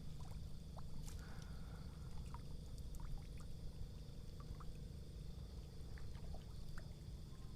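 Quiet ambience on the water: a steady low rumble with faint water sounds and a few scattered small clicks.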